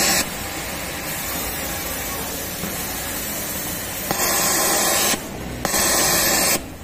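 Siruba 747 overlock sewing machine running at high speed in short bursts as fabric is fed through it: a run ending just after the start, then two runs of about a second each, about four and five and a half seconds in, with a brief stop between them. A steady background hum of the sewing floor lies under the gaps.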